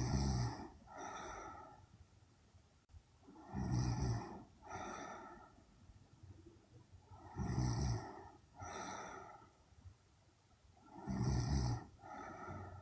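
A young woman snoring in her sleep: four slow breaths, each a loud rattling snore followed about a second later by a softer one, repeating about every three and a half to four seconds.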